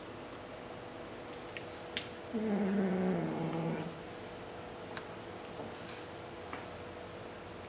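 Kitten growling once, a low drawn-out growl of about a second and a half that sinks slightly in pitch: a warning while guarding a piece of shrimp it won't share.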